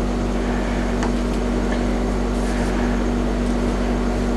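Steady background hum with a constant low tone, unchanging throughout, and a faint click about a second in.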